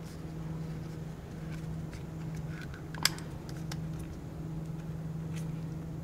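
Faint clicks and taps of a plastic M.2 SSD enclosure and its rubber sleeve being handled and snapped together, with one sharper click about three seconds in, over a steady low hum.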